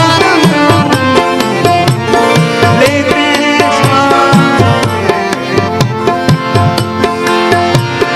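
Instrumental interlude of Indian devotional-folk style music, with tabla playing a steady rhythm under held melodic notes.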